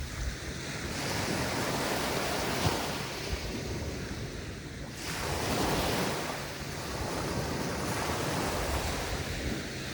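Mediterranean waves breaking and washing on a sandy beach, the surf rising and falling in slow swells a few times.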